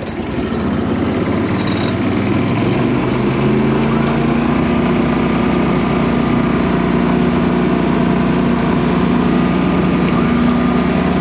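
Small boat's motor opened up to run fast through shallow water, growing louder over the first few seconds and then running steadily at speed.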